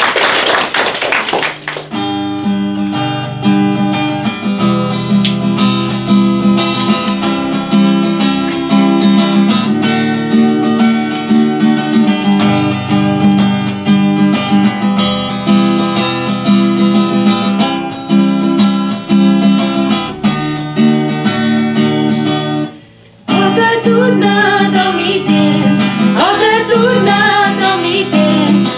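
Acoustic guitar playing chords after a short burst of noise at the start. The guitar breaks off briefly near the end, then a voice starts singing over it.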